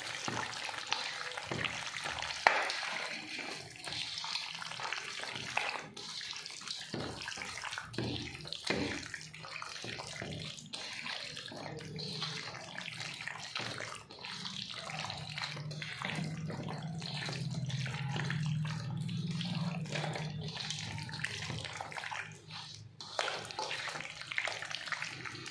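Wet squelching and slapping of a bare hand kneading chicken pieces into a thick yogurt and spice marinade in a stainless steel bowl, continuous, with many small wet smacks.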